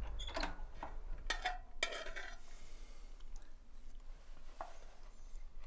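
A handful of faint clicks and scrapes in the first two seconds or so, then quiet room tone.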